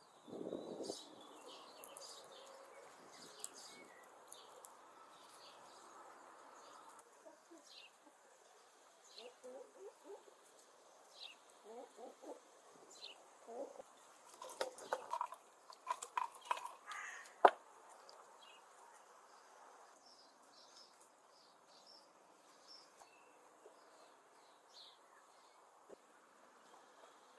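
Small birds chirping faintly now and then. About halfway through come a few seconds of clinks and splashing as liquid is poured from an earthenware tangia pot into a clay dish, ending in one sharp knock.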